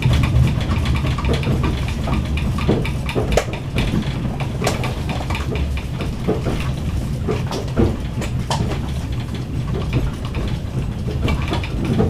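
Inside a moving passenger railway carriage: a steady low rumble with irregular knocks and rattles.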